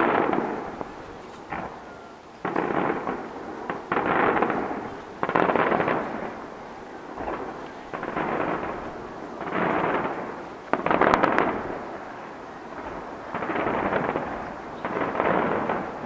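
Aerial firework shells bursting in quick succession during a display's finale: about a dozen distant booms, roughly one a second, each fading over about a second. The loudest comes about eleven seconds in, with sharp cracks.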